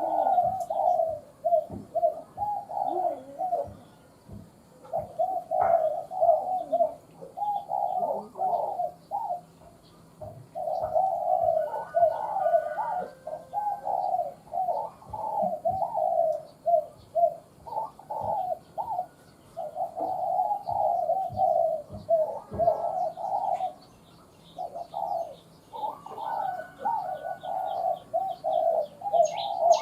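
Spotted dove cooing in repeated phrases with short pauses between them, the calling used as a lure to draw in wild doves. A rapid run of high chirps from another small bird comes in near the end.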